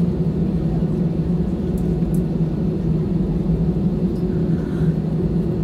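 Steady low hum of a jet airliner's engines and cabin noise heard from inside the passenger cabin while the plane taxis.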